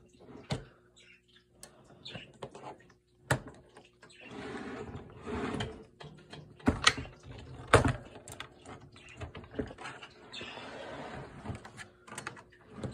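Handling and fitting plastic bird-cage parts: sharp plastic clicks and knocks, the loudest pair a little past the middle, with two stretches of rustling and scraping.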